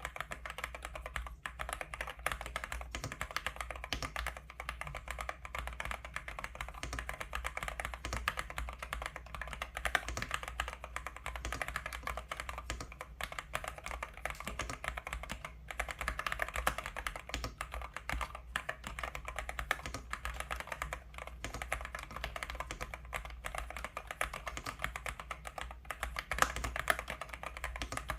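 Continuous fast typing on a gasket-mount mechanical keyboard from the Dareu A98 series: a dense, unbroken stream of key clicks. A steady low hum sits underneath.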